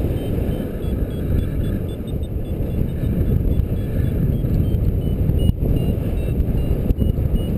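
Airflow buffeting the microphone of a paraglider in flight: a steady low rushing. Faintly behind it, a variometer gives short, regularly repeated beeps.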